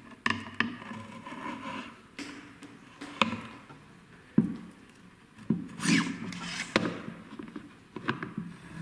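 Heckler & Koch G11 barrel and breech assembly being worked back into the rifle's center assembly along its guide rails: irregular knocks, clicks and scraping as the parts are lined up, a fiddly fit.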